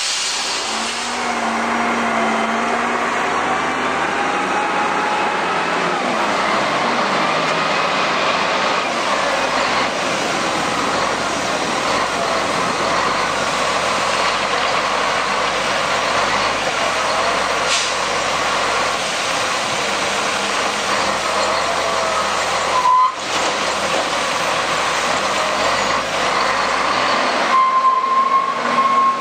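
Large wheel loader's diesel engine running under load, with a wandering hydraulic whine, as it lifts a full bucket of coal. For about the first second a cutting disc grinds through steel.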